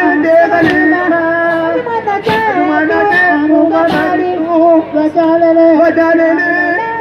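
Voices singing a Yao dance song, the melody moving in short phrases, with a sharp beat struck about every second and a half.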